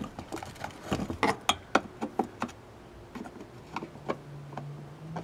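Screwdriver and hands working on a metal outdoor light fixture: quick, irregular clicks and light taps, dense for the first couple of seconds and thinning out after.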